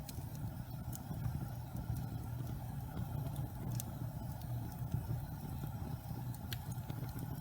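Log fire burning with a steady low rumble, broken by a few sharp crackles and pops from the wood.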